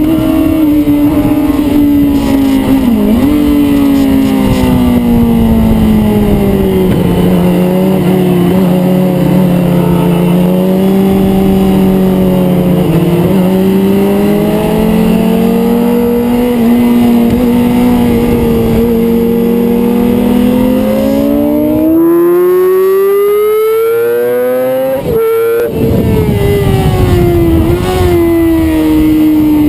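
Yamaha YZF-R6 600 cc inline-four sport bike engine heard on board at track speed, over a rush of wind noise. The revs fall off through a bend and hold, then climb steadily under hard acceleration. About 25 s in there is a brief break for a gear change, and the revs settle lower.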